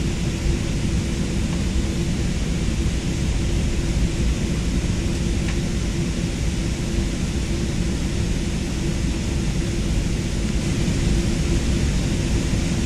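Steady airliner cabin noise: a low, even rumble with a constant hum running through it, heard from inside the passenger cabin.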